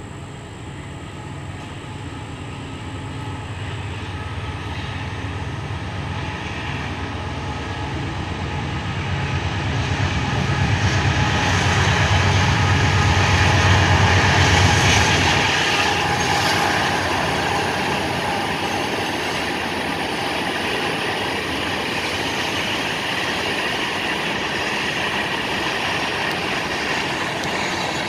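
Freight train passing: the diesel locomotive's low engine rumble grows louder and peaks about halfway through, then falls away, leaving the steady rolling and rail noise of tank cars going by.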